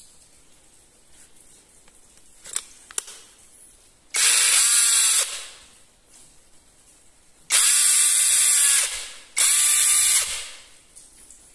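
Cordless drill motor run in three short bursts, each starting abruptly on the trigger and winding down afterwards, preceded by two sharp clicks.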